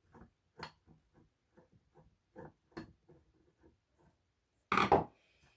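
Screwdriver working the screws of a metal fire-horn mounting plate: a run of small, irregular clicks and ticks, then one louder clatter near the end.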